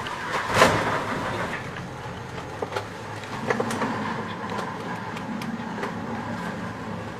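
Small fishing boat's engine drone in heavy seas, with a loud wash of a wave breaking about half a second in and scattered knocks and clatter from the boat.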